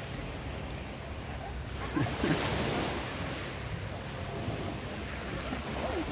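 Beach ambience: surf washing on the shore over a steady low rumble of boat engines, with wind on the microphone. The wash of surf swells louder for about a second, roughly two seconds in.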